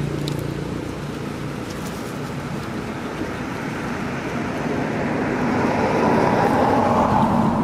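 A motor vehicle's engine running with road noise, a steady hum that grows louder over the last few seconds, as of a vehicle approaching or passing.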